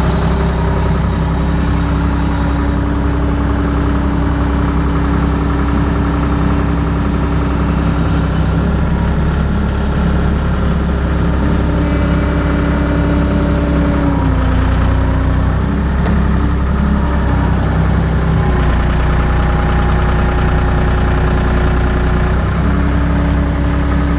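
John Deere 260 skid steer's diesel engine running steadily, with noise from the hydraulic system that is put down to the machine still being a little cold. A high whine comes in a few seconds in and stops about halfway through, and the engine's pitch shifts slightly around the middle.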